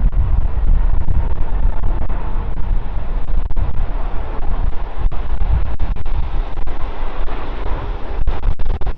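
Airbus A330 widebody jet's engines heard from the ground as the aircraft passes: a loud, steady, deep rumble with a faint whine.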